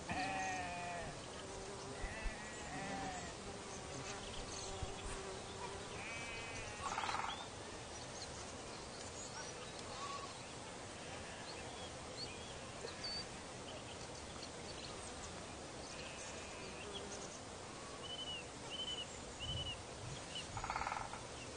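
A flock of sheep bleating at intervals across an open pasture, several separate calls, the loudest near the start, about seven seconds in and just before the end.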